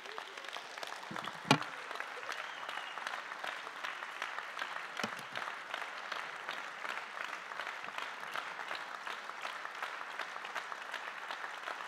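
Audience applauding steadily. About one and a half seconds in there is a single sharp knock, the loudest sound, as a handheld microphone is set down on a table.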